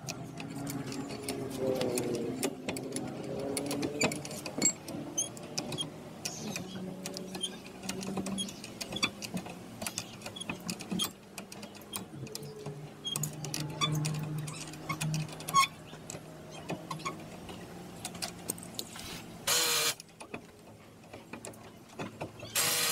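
Mechanic's tool work on a wheel hub: scattered metal clicks and knocks over a low hum, then two brief loud bursts of noise near the end, about three seconds apart.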